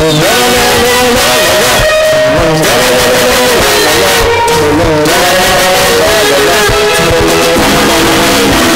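Loud live gospel band music led by electric guitar, with a wavering sung melody over it.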